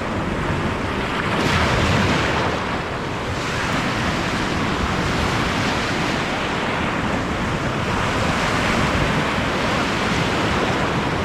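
Ocean surf breaking and washing up on a beach in a steady rush, swelling louder twice as waves come in, with wind buffeting the microphone.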